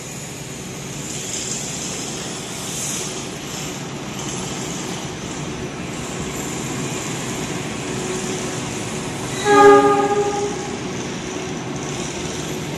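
Diesel-electric CC 206 locomotive hauling a container freight train through the station, a steady running rumble of engine and train. About three-quarters of the way through it gives one horn blast of about a second, the loudest sound.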